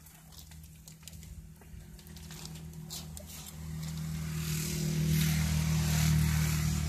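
A motor vehicle drives past on the road, its engine hum growing louder from about halfway through and easing off near the end, with a hiss of tyre noise as it comes closest.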